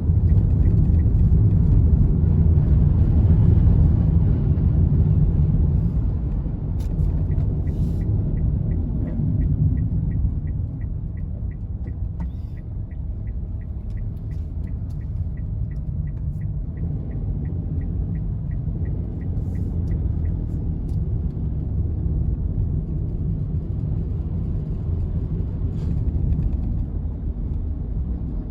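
Low, steady rumble of a vehicle driving along a road, louder for the first few seconds. From about ten to twenty seconds in, a faint regular ticking about three times a second runs over it.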